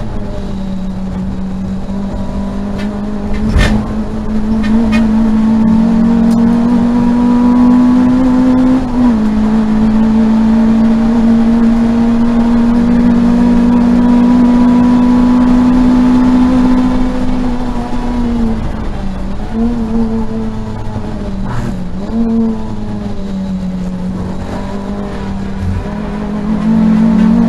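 Peugeot 205 GTi race car's four-cylinder engine heard from inside the stripped cabin, running hard at high revs. The note climbs slowly and drops in steps several times, wavers and falls as the car slows for a bend, then rises again near the end. A sharp knock comes about three and a half seconds in.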